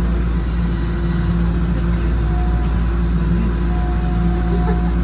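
Toronto Rocket subway train running on TTC Line 1, heard from inside the car. There is a steady heavy rumble with a constant whining hum under it, and a thin high squeal comes and goes a few times.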